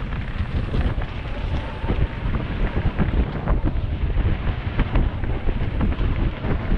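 Mountain bike descending a dirt singletrack covered in leaf litter at speed: wind rushing over the microphone, tyres rolling over dirt and leaves, and frequent sharp clatters and knocks from the bike over bumps.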